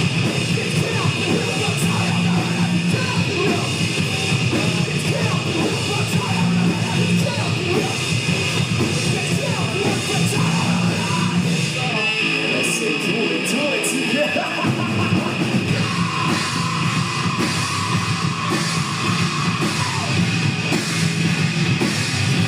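Heavy rock song with a drum kit and vocals. About twelve seconds in, the bass and low end drop out for a couple of seconds, then come back in.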